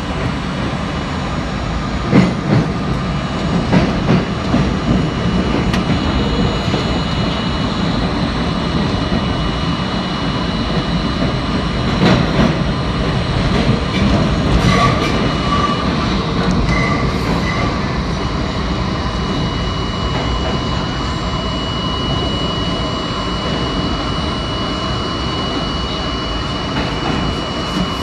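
R32 New York subway train running through a tunnel, heard from inside the lead car: a steady rumble of wheels on rail, with a few sharp clacks over rail joints and brief wheel squeals about halfway through.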